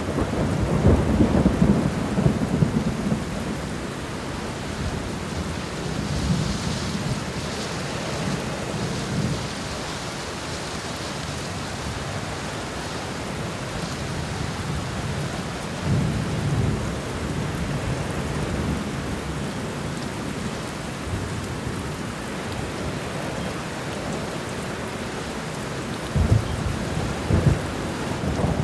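Steady heavy rain with rolls of thunder: a loud rumble at the start, another about halfway through, and a sharper crackling rumble near the end.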